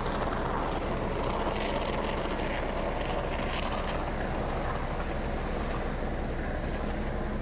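Steady machine drone with an even hiss as urethane foam is pumped through a hose-fed gun into the seam between SIP panels.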